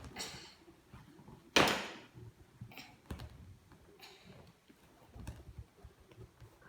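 Small plastic toy animal figures being handled and knocked into a plastic toy container, with scattered light clicks and one loud clack about a second and a half in.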